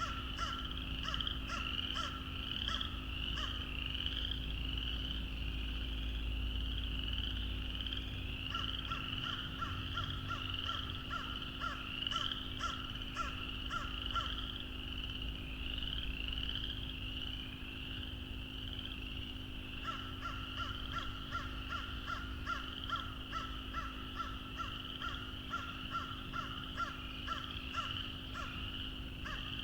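A dense, steady chorus of frogs calling, with rapid runs of clicking pulses from another frog or frogs that come in bouts of several seconds with pauses between. A steady low hum lies underneath.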